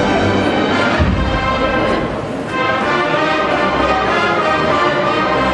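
Agrupación musical, a Spanish procession band of cornets, brass and drums, playing a processional march: held brass chords over low drum beats.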